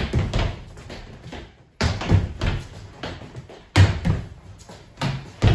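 Sneakers stamping and thumping on a hardwood floor during fencing footwork: quick steps, with a heavy landing about every two seconds as each lunge lands, followed by a patter of recovering and retreating steps.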